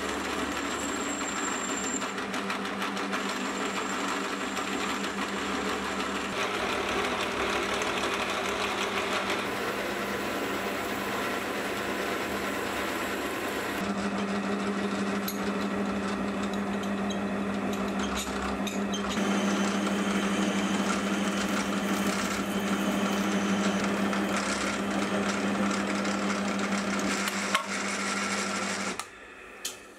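Metal lathe running and cutting metal with a steady machining noise as the workpiece is turned, then bored from the tailstock. A steady low hum joins about halfway through, and the running stops just before the end.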